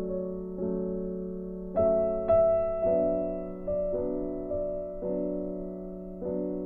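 Background piano music: slow, soft notes and chords, each struck and left to fade.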